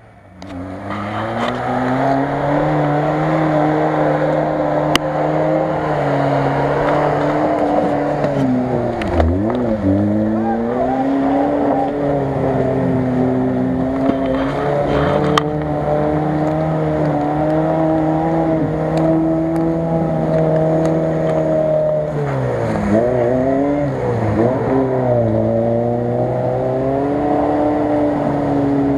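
Lada Niva's engine held at high revs as it pushes through deep mud. The revs drop and climb back twice, once about a third of the way in and again in a longer stretch near the three-quarter mark.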